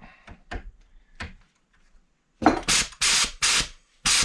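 A few light handling clicks and knocks, then about halfway through a run of five or six short hissing bursts of compressed air as the pneumatic angle grinder's trigger is pulsed: the grinder is seized up and barely turns.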